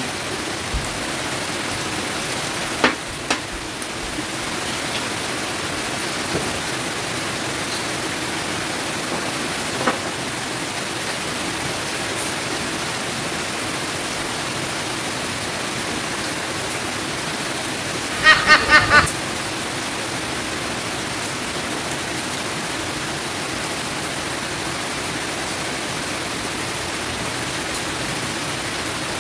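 A steady, even hiss of background noise, broken by a few soft clicks early on and a quick run of four short chirps a little past the middle.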